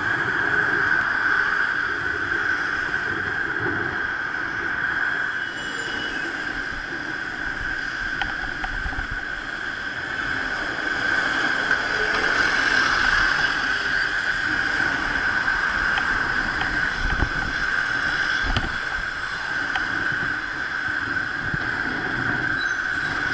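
Road traffic heard from a moving bicycle, with wind on the microphone and a red London double-decker bus passing close alongside about halfway through, over a steady high-pitched whine.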